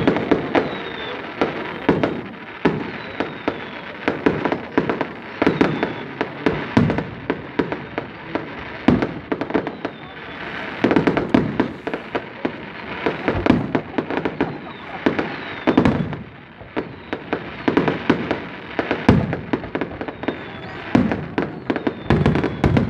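Fireworks display: a dense run of bangs and crackling bursts, several a second, with short faint falling whistles now and then.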